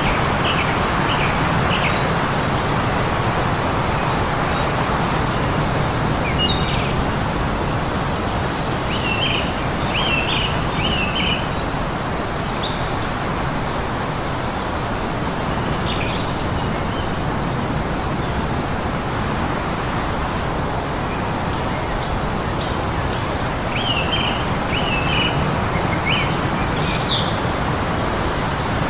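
Steady heavy wind noise of a blizzard, with small birds chirping in short runs of a few notes every few seconds throughout.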